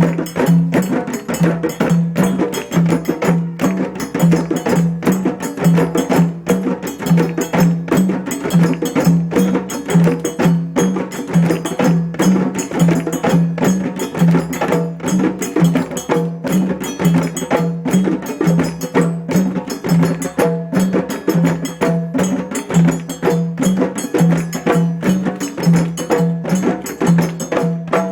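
Djembe drumming: a fast, dense run of hand strokes over a low pulse that repeats evenly, about twice a second.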